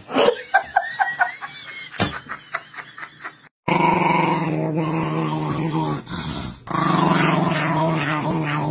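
Small chihuahua growling in two long, steady stretches with a short break between them, heard while it bares its teeth. Before it comes a quick run of short high-pitched chirps.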